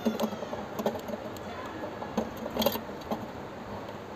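Small clicks and rattles of a motorcycle headlight bulb, its holder and wiring being handled as the bulb is seated in the headlamp, with a sharper cluster of clicks about two and a half seconds in.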